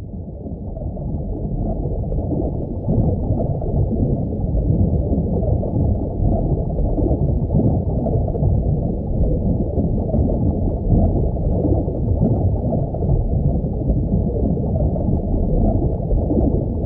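Underwater ambience sound effect: a steady, muffled low rush of water, fading in at the start.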